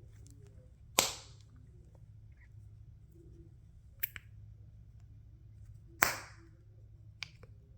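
Plastic snapper fidget toy snapping: two loud, sharp snaps about a second in and about six seconds in, with fainter clicks around four seconds and near the end.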